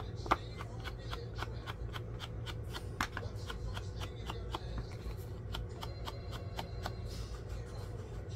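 Hands working on paper at a craft table: a run of quick, light, even taps at about four a second, thinning out near the end, over a steady low hum.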